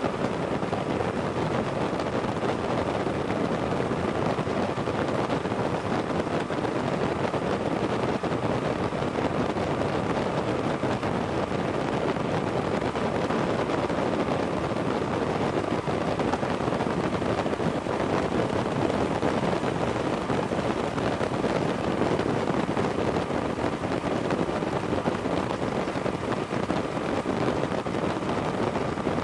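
Steady rush of wind over the microphone mixed with the drone of a paramotor engine in flight.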